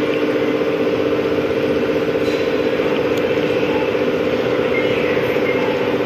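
Drop tower ride machinery running with a steady, even hum holding two constant tones, during a test cycle of the ride.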